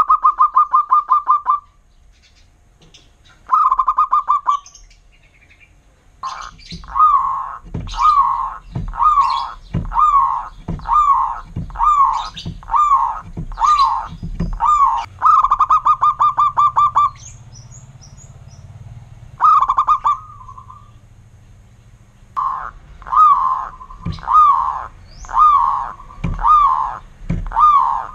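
Zebra dove (perkutut) singing: fast rolling trills alternate with strings of separate falling coos, about one a second, with short pauses between phrases.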